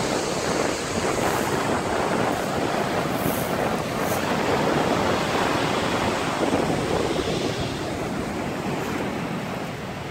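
Sea surf breaking and washing up over a beach of small round pebbles: a steady rush of waves and foam that eases off near the end.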